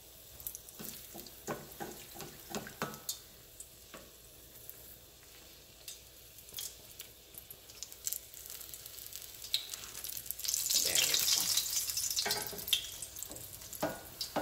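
Egg-battered chiles rellenos shallow-frying in oil in a stainless steel skillet: a light crackle with a few spatula clicks against the pan. About ten seconds in, a louder hissing sizzle lasts a couple of seconds as one pepper is turned over back into the hot oil.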